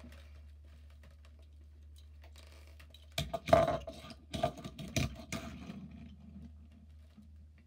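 A die-cast toy taxi set down and pushed along a hard table into a row of toy cars: a quick run of small clicks and clatters about three seconds in, tapering off over the next couple of seconds. Before it, only a faint steady low hum.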